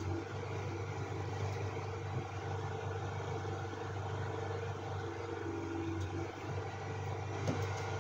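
Steady low mechanical hum, with a few faint clicks near the end.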